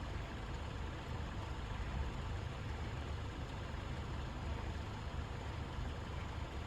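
A steady low engine rumble, an engine idling.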